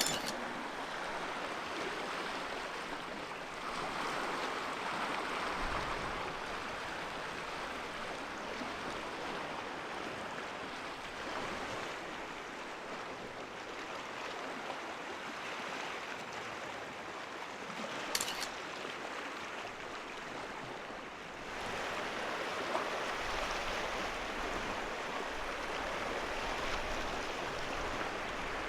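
Sea surf washing against the coast in a steady rush, swelling about four seconds in and again about twenty-one seconds in. A short click comes about eighteen seconds in.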